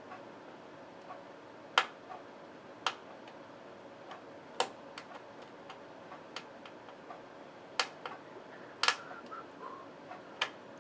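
Sharp, irregular clicks and taps, about a dozen, as the tiny M.2 retaining screw is worked against its standoff to fasten an NVMe drive to the motherboard.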